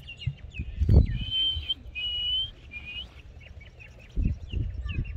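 Small birds chirping, with a few long clear whistled notes about a second in. There are low thumps too, the loudest about a second in and several more near the end.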